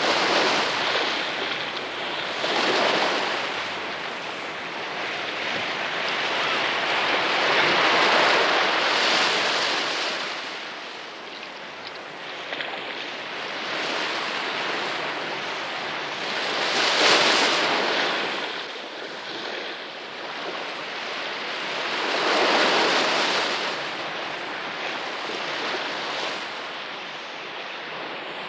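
Sea surf sound effect: waves rolling in and washing back, the rush swelling and ebbing every few seconds, with the biggest swells about 8 and 17 seconds in.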